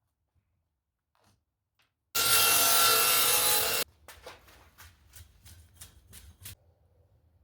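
Wood being worked with a tool: a loud, steady cutting noise that starts and stops abruptly and lasts under two seconds, then a run of short scraping strokes on the wood, about three a second.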